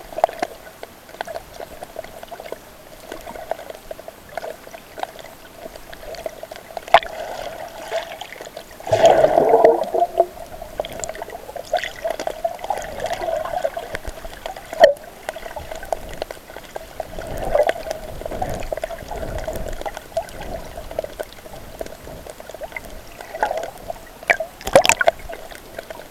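Water gurgling and sloshing around a camera filming underwater, with irregular louder gushes of bubbling, the biggest about nine seconds in.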